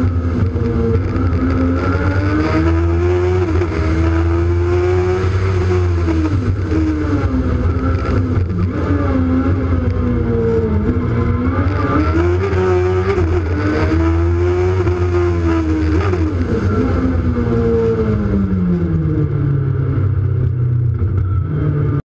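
Peugeot 106 race car's Honda 1000cc engine, heard from on board, revving up and falling back again and again as the driver accelerates and brakes. Near the end the revs drop to a low steady run, then the sound cuts off abruptly.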